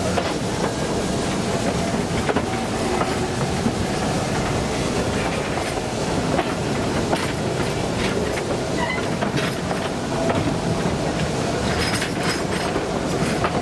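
A train rolling by on the rails: a steady rumble of wheels on track with scattered clicks and clatter.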